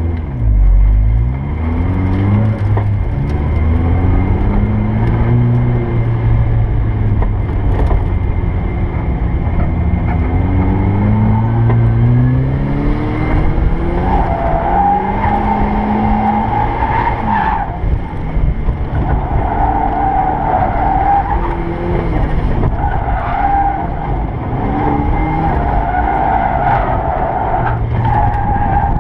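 Turbocharged Mazda Miata driven hard, heard from inside the open-top cabin: the engine revs rise and fall repeatedly with gear changes. From about halfway the tyres squeal in several long stretches as the car slides through drifts.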